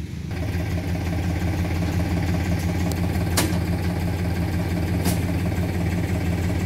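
Tractor diesel engine running, growing louder about a third of a second in and then holding steady, with two sharp clicks in the middle.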